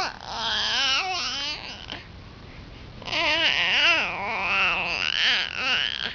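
Baby babbling and fussing, with wavering, cry-like vocal sounds in two stretches and a short pause between them.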